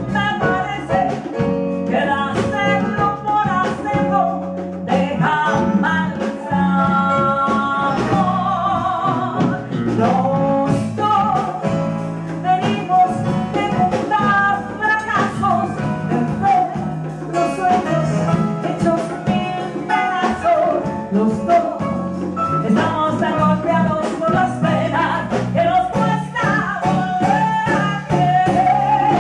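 A woman singing a song into a microphone, backed live by a band with keyboard, electric bass and drums.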